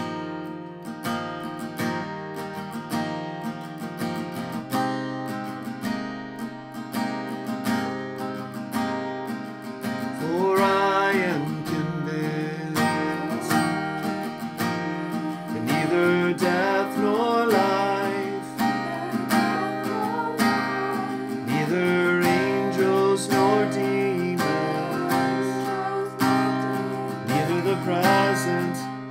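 Acoustic guitar strummed steadily as a song's introduction; about ten seconds in, a man and girls begin singing over it, the girls echoing his lines.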